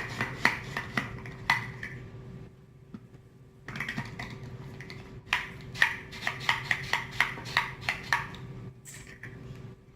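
Microplane garlic shredder working a garlic clove: a run of sharp clicks and scrapes, a short pause, then a quicker series of clicks at about three or four a second.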